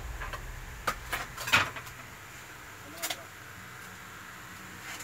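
A few brief clicks and rustles, the loudest about a second and a half in, over faint room noise.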